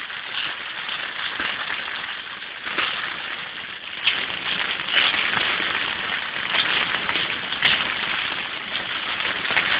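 Heavy storm rain pelting a car's roof and windscreen, heard from inside the moving car: a dense patter of drops that grows louder about four seconds in.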